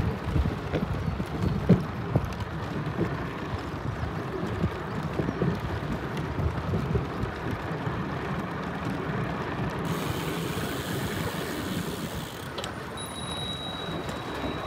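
Steady low rumble with wind noise on the microphone, as when travelling; a hiss comes in briefly about two-thirds of the way through and a thin high tone near the end.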